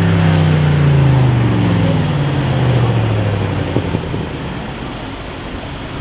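Audi RS6 C7's twin-turbo V8 through a straight-pipe exhaust, its note falling steadily in pitch for about three and a half seconds and then fading as the car drives away.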